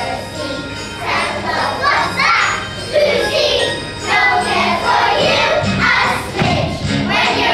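A group of children singing a song together over a music backing track.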